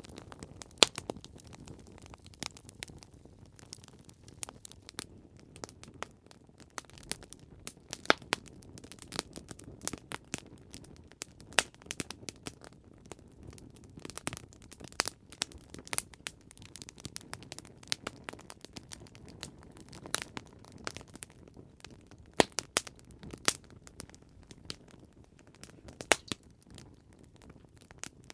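Campfire crackling: irregular sharp pops and snaps over a low, steady hiss of burning wood.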